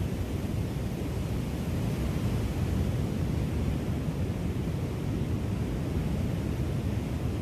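Steady low rumble of wind on the microphone, with ocean surf washing behind it.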